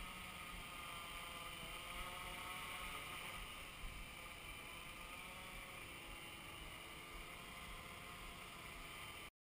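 Hexacopter's brushless motors and propellers whirring faintly and steadily in flight, their pitch wavering slightly, then cutting off suddenly near the end.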